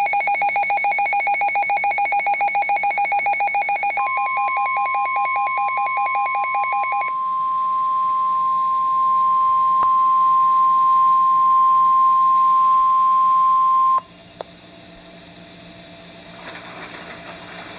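A weather radio receiver's rapid electronic beeping alarm. About four seconds in, the steady 1050 Hz NOAA Weather Radio warning alert tone joins it, and the beeping stops a few seconds later. The tone holds and cuts off abruptly about fourteen seconds in, leaving faint radio hiss as the broadcast warning is about to begin.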